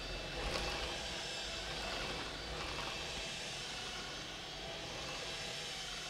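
Cordless stick vacuum cleaner running steadily on carpet: a continuous motor whine over a rushing suction noise.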